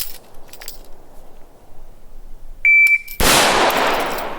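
A shot timer's start beep, one short steady high tone, followed about half a second later by a single shot from a Palmetto State Armory M4-style AR-15 carbine, its report ringing out and fading over about a second.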